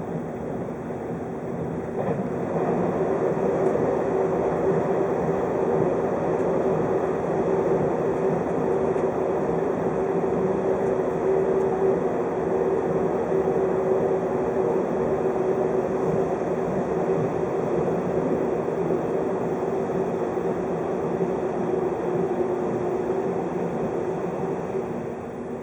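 JR 583-series electric train heard from inside a passenger car while running: a steady rumble with a constant hum, growing louder about two seconds in and easing off near the end.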